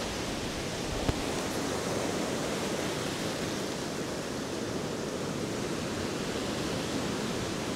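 Surf breaking and washing up the beach, a steady rushing hiss, with a single short click about a second in.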